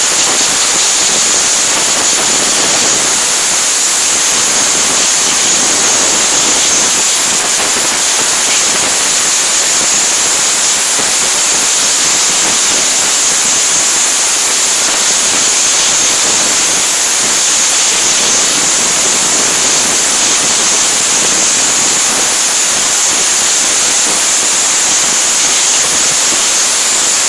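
Compressed-air blow gun hissing steadily as it blows freshly washed head bolts dry, cutting off suddenly at the end.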